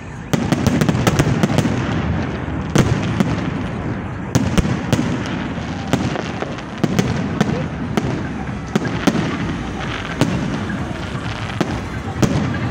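Aerial fireworks display: many shells bursting in quick, irregular succession, sharp bangs and pops over a continuous din of the show.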